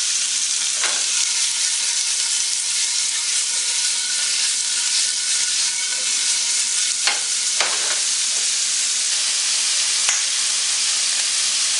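Cubed beef steak sizzling in hot olive oil in a frying pan: a steady hiss, with a few light knocks, two of them close together about seven seconds in.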